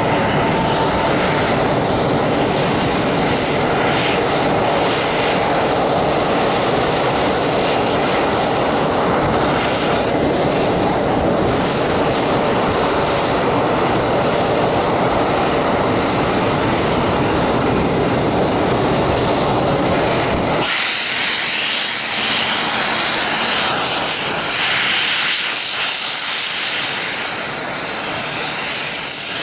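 Airbus A319's CFM56 jet engines running loud and steady as the airliner taxis, a dense rumble with hiss above it. About two-thirds of the way through the low rumble drops away suddenly, leaving mostly the high hiss of the engines.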